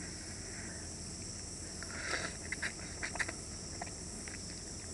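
Person slurping instant cup noodles: a short hissing slurp about two seconds in, followed by a few small wet clicks and smacks of chewing.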